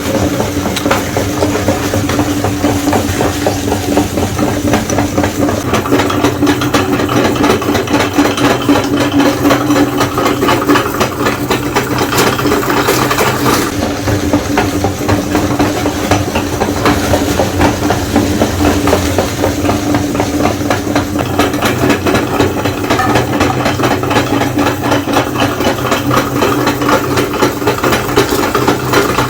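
Electric meat grinder running steadily: an even motor hum under a continuous crackling rattle as it grinds.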